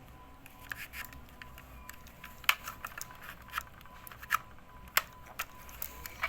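Handling noise: irregular sharp clicks and snaps, a handful of them louder than the rest, over a faint steady hum.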